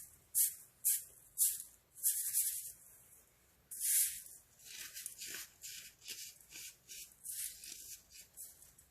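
Compressed baking soda being crushed in a series of crisp, dry crunches, about one or two a second. There is a short pause near three seconds, then one strong crunch followed by a run of softer, quicker ones.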